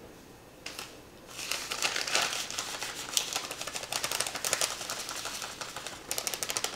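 Bag of sesame seeds shaken over a rice bowl: plastic crinkling and a fast rattle of seeds, starting about a second in and running on with a short pause near the end.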